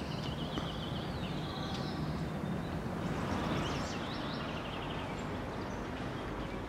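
Outdoor city ambience: a steady wash of distant urban noise with small birds chirping in short quick trills near the start and again about halfway through.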